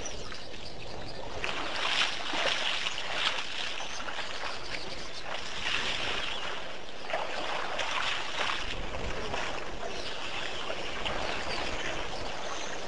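Elephants splashing and sloshing water at a waterhole, in irregular bouts about a second long.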